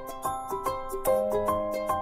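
Background music: a light, bouncy tune of quick plucked or struck notes, about four or five a second, over held chords.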